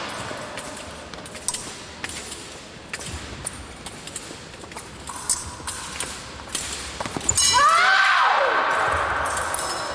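Épée bout: scattered light taps and clicks of blades and feet on the piste, then about seven seconds in a loud rising shout together with the scoring machine's steady tone signalling a touch, fading slowly toward the end.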